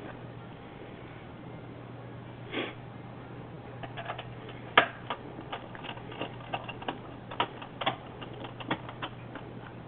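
Scattered small, sharp clicks and taps from parts being handled while a PC is assembled, coming thicker from about four seconds in, over a steady low hum.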